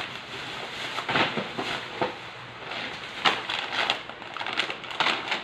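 Plastic bags and wrapping crinkling and rustling in irregular bursts as items are pulled out of a cardboard box.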